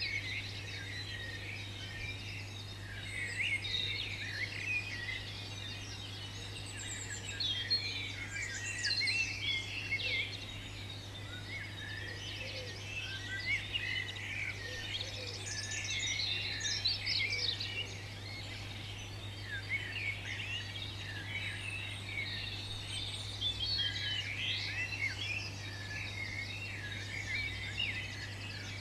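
Birds chirping and singing, many short calls overlapping throughout, over a steady low hum.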